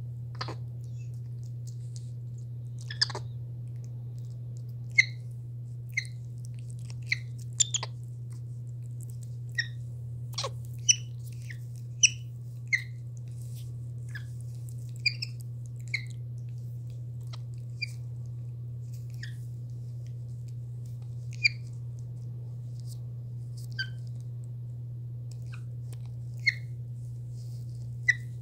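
Capuchin monkeys giving short high-pitched chirps and squeaks, scattered irregularly, about twenty in all, over a steady low hum.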